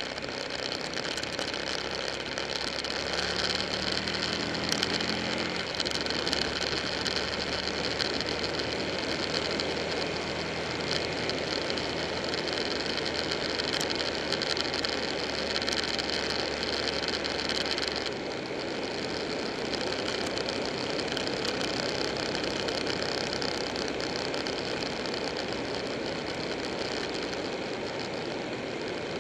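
Buell 1125R's V-twin engine running under way with heavy wind rush on the mounted camera. The engine note climbs about three seconds in as it accelerates, holds steady, then eases off about eighteen seconds in.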